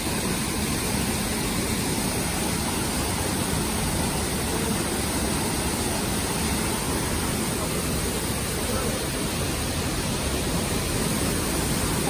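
Waterfall and shallow stream rushing, a steady, unbroken hiss of falling and running water.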